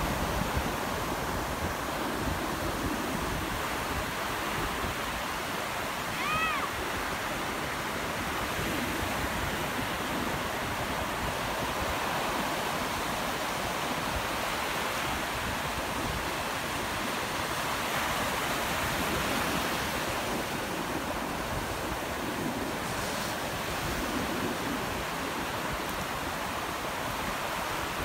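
Ocean surf breaking and washing in steadily over the shallows. A short high-pitched cry is heard once, about six seconds in.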